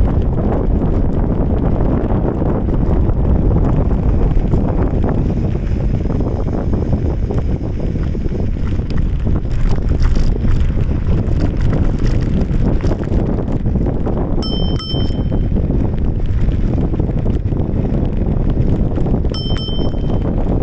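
Steady wind rumble on the microphone while riding along a trail, with a handlebar bell rung twice, about five seconds apart, each a quick double ding.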